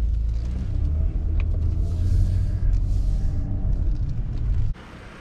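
Car driving, heard from inside the cabin: a steady low rumble of engine and road noise. It stops abruptly near the end.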